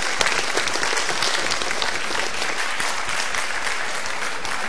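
Studio audience applauding steadily, dense clapping at an even level.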